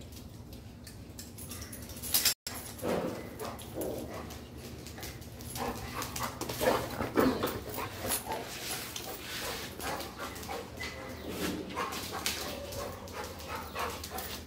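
Labrador retriever giving short, irregular vocal sounds, over and over from about three seconds in, with scattered clicks and knocks among them.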